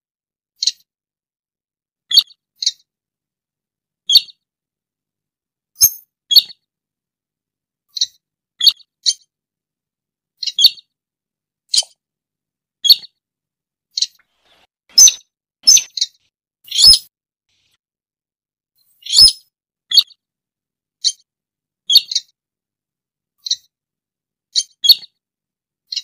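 Slaty-breasted rail (sintar) giving short, sharp, high calls at irregular spacing, about one a second and sometimes in quick pairs, with silence between them.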